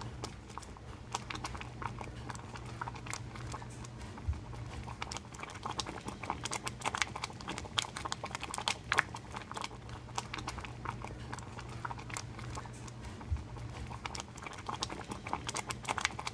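Thick cooked oatmeal bubbling, with irregular sharp pops and small spatters that come thicker and louder after about six seconds, over a steady low hum.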